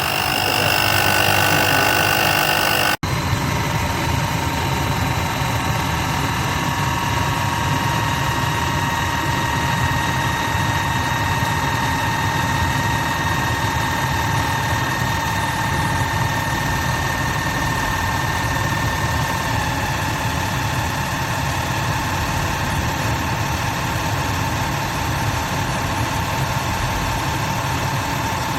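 The 12V electric motor of a car jack and air-pump kit running steadily under load, with a brief break about three seconds in.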